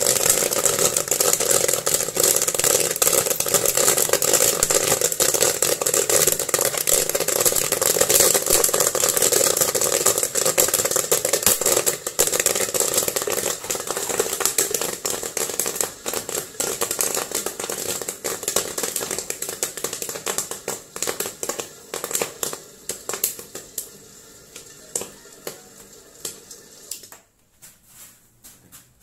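Popcorn machine kettle full of corn popping and crackling, the dense pops thinning out and getting quieter over about twenty-five seconds, over a steady hum from the machine; the sound cuts off abruptly near the end.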